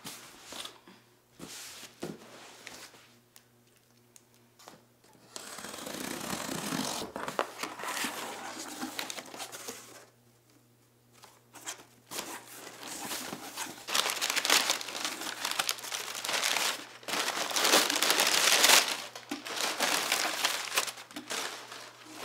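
A cardboard shipping box being opened, then crumpled kraft packing paper and honeycomb paper wrap crinkling and rustling as hands dig through it. The first few seconds hold only scattered taps and scrapes; the crinkling comes in long stretches, loudest in the second half.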